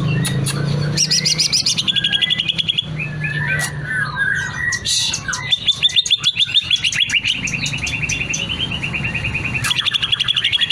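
Cucak ijo (green leafbird) singing in full voice: long runs of rapid repeated chattering notes and trills with varied phrases mixed in, the bird running through its repertoire of learned calls. A steady low hum runs underneath.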